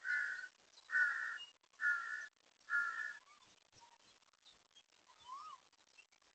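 A crow cawing four times, about a second apart, each caw harsh and short. A faint, short bird chirp follows about five seconds in.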